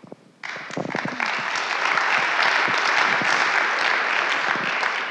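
Audience applauding. The applause starts about half a second in and fades near the end.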